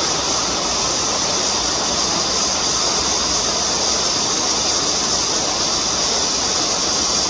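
Steady rush of a shallow stream flowing over a rocky, sandy bed, with a constant high hiss over it.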